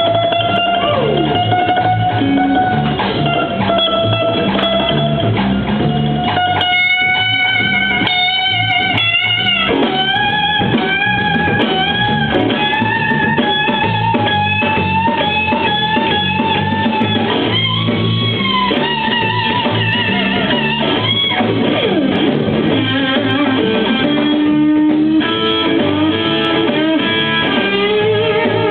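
Live blues band jamming, with an electric guitar playing a lead line full of bent notes over the band's steady rhythm.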